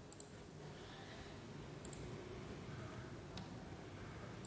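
A few faint computer mouse clicks, spaced irregularly, over low room noise.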